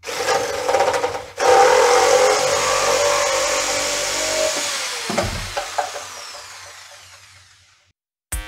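A power tool's motor running at speed, then switched off and winding down over several seconds with a falling pitch. There is a knock about five seconds in.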